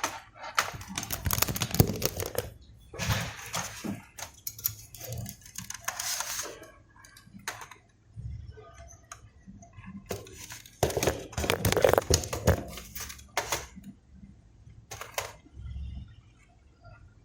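Small hard plastic and metal parts being handled: bursts of rapid clicking, rattling and scraping in several spells, with short pauses between.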